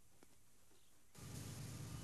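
Faint near-quiet, then about halfway through a road-sweeper truck starts in abruptly: a steady low engine hum under the hissing scrape of its rotating brushes sweeping volcanic ash off the street.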